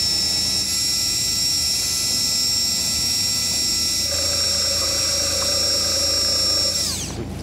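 Shimano ForceMaster electric fishing reel's motor whining at a steady pitch as it winds in a hooked fish; a second, lower tone joins about four seconds in, and near the end the whine falls in pitch and stops as the motor halts.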